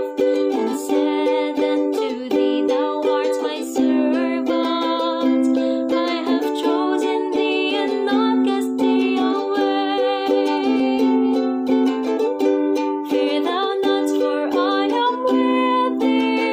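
A woman singing a hymn-like song while strumming a ukulele, with steady strummed chords under her voice.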